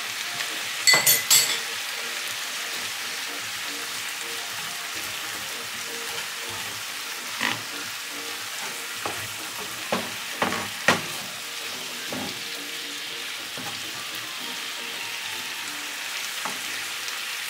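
Sliced red onion sizzling steadily as it fries in achiote oil in a nonstick skillet, stirred with a spoon. A few sharp knocks of the utensil against the pan come as a quick cluster about a second in and again a few times in the middle.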